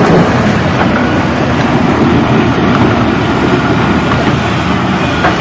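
Heavy vehicle or machine engine running, a loud steady rumble that does not let up.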